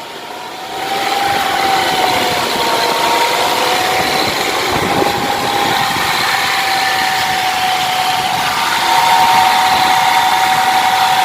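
Hyundai Santa Fe drivetrain running at speed in gear, a steady hum and whine that builds about a second in and rises a little more near the end. It is the noise the mechanic traces to a worn bearing inside the transfer case.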